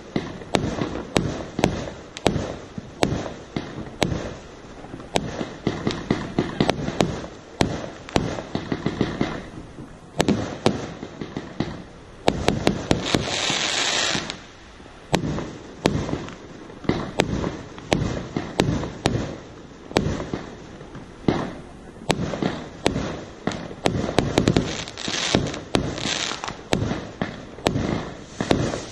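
Aerial fireworks going off in rapid succession, a dense stream of sharp bangs from bursting shells. About thirteen seconds in comes a loud hiss lasting a second or two.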